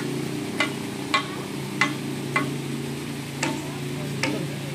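Fast, shallow river water running and rippling, with a string of short sharp ticks about every half second to a second over it.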